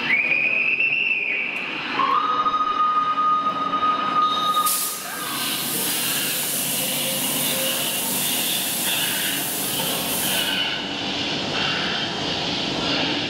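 Steam-locomotive sound effect at the display of the 232 U1 locomotive. A whistle note is held at the start, then a lower whistle note is held for about three seconds. From about five seconds in, a loud hiss of steam released at the cylinders lasts about six seconds, over a continuous rumble.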